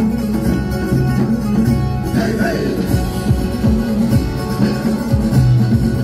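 Music: an instrumental stretch between the sung verses of a Turkish patriotic song, with plucked strings over a low, repeating beat.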